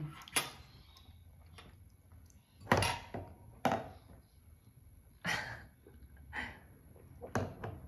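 About six short, soft thunks and knocks, the loudest a little under three seconds in, as a child handles a glass on a plastic high-chair tray and drinks from it.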